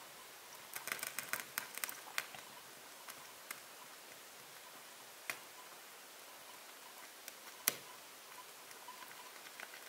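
Faint handling noises: a quick run of small clicks and rustles about a second in, then a few single sharp clicks spaced a couple of seconds apart, the loudest near the end.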